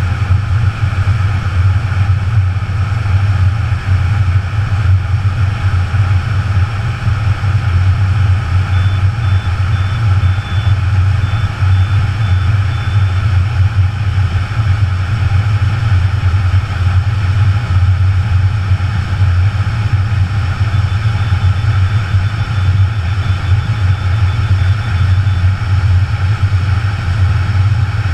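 Loud, steady rush of freefall wind over a helmet-mounted GoPro in its waterproof housing, mostly a deep rumble with a hiss above it, as the helmet falls on its own with no skydiver. Two faint high beeping tones come in about a third of the way through and again near the end.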